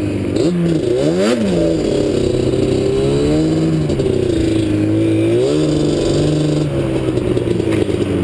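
Yamaha Raptor ATV engine heard from on board, revving up and down as the quad is ridden, its pitch rising and falling over and over with a quick blip about a second in.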